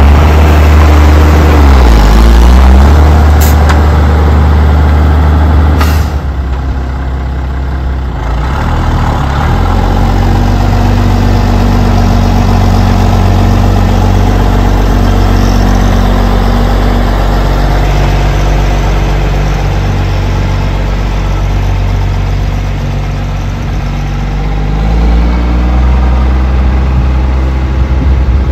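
Mercedes-Benz MB-trac 1500 tractor's six-cylinder turbo diesel running as the tractor drives, its engine speed dipping and rising a few times. Two brief sharp clicks come a few seconds in.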